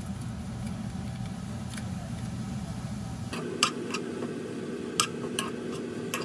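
Metal spoon clinking and scraping against a nonstick wok while stirring bellflower root strips, several sharp clicks in the second half, over steady background noise.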